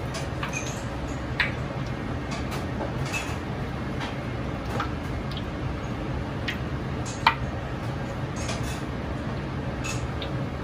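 A wok of frying oil heating over a commercial gas wok burner: a steady low rumble from the burner, with scattered small ticks and pops as the hot oil spits. Two sharper pops stand out, about a second and a half in and about seven seconds in.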